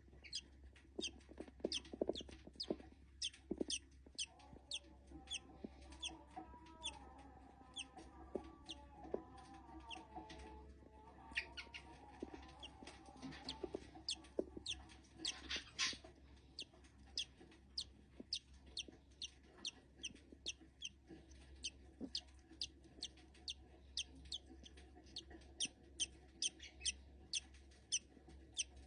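Budgerigar chick hatching, giving short, sharp, high-pitched peeps over and over, about two to three a second.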